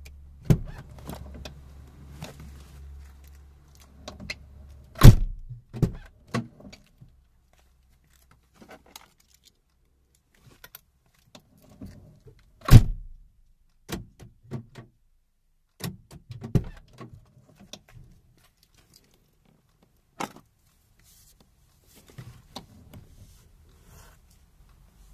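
Scattered sharp plastic knocks and clicks from a Renault Clio 1 door trim panel being handled and pressed home onto the door, irregularly spaced, with the loudest knocks about five seconds and thirteen seconds in.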